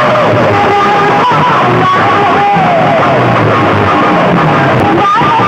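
Loud music played through a large outdoor sound system with horn loudspeakers: a wavering lead melody over a steady bass line.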